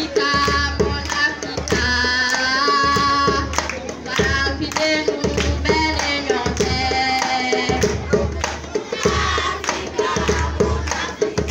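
Djembe drums played by a group, with voices singing a song over them in short phrases of held notes.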